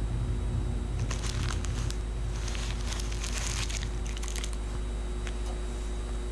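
A low steady drone with a faint fixed hum. From about a second in, a spell of crinkling and crackling noise lasts about three and a half seconds, with a few isolated crackles after it.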